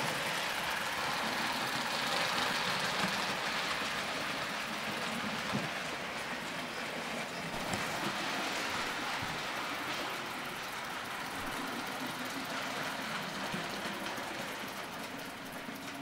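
Live-steam 00 gauge GER S69 model steam locomotive running round the layout with its coaches: a steady rushing noise with a low rumble and occasional light clicks from the wheels on the track.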